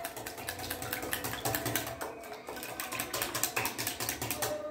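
Wire whisk beating a milk-and-egg mixture in a glass bowl: rapid, even clicking of the wires against the glass.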